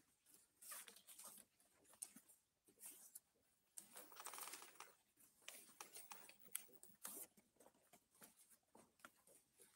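Faint paper rustling and small taps and clicks of pens and paper, with a longer rustle about four seconds in: ballot papers being filled in, folded and handled during a silent secret vote.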